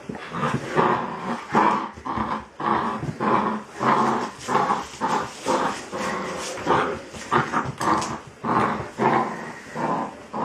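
A dog making a rapid string of short, pitched vocal sounds, about two a second.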